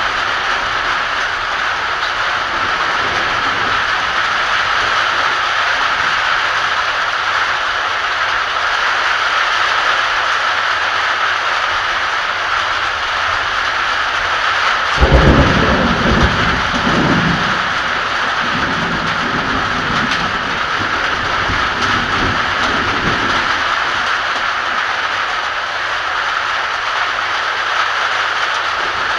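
Heavy rain falling in a steady hiss. About halfway through, a loud clap of thunder breaks in and rumbles away over several seconds.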